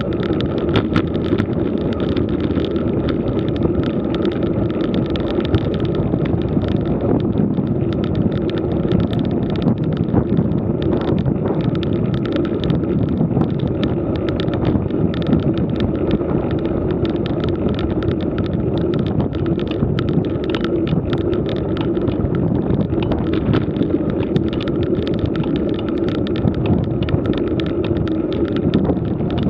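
Road bike riding uphill at a slow pace: steady tyre-on-rough-asphalt noise and wind buffeting the microphone, with frequent small rattles and ticks.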